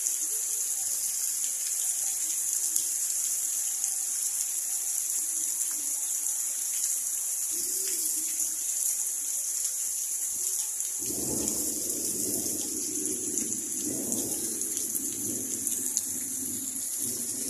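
Heavy rain falling steadily on ground, puddles and leaves, a constant hiss. About eleven seconds in, a lower, uneven rushing sound joins it.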